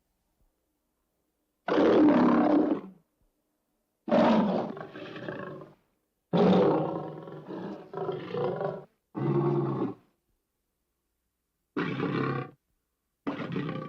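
Lion roars played as sound-effect clips: about six short roars, each cut off into dead silence before the next, the last one clipped short at the end.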